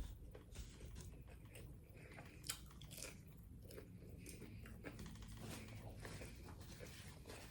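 Quiet chewing and biting into a taco, with scattered small crunches; the sharpest comes about two and a half seconds in.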